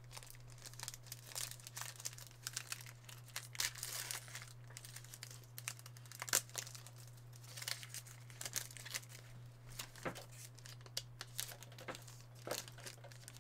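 Crinkling and tearing of a trading-card pack's foil wrapper as cards are handled: irregular crackles throughout, over a steady low hum.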